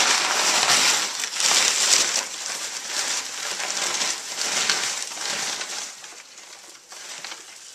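A pig rooting and tugging with its snout in crumpled brown kraft packing paper, the paper crinkling and rustling in quick irregular bursts, loudest in the first second or so and then fading.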